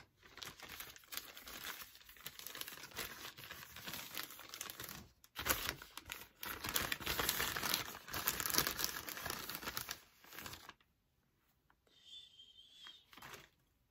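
Grey plastic mailing bag crinkling loudly and being torn open by hand, with several sharp louder rips. About eleven seconds in it goes quiet, leaving only a few faint rustles near the end.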